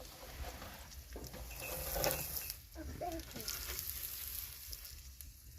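Eggs frying in a pan: a steady sizzle.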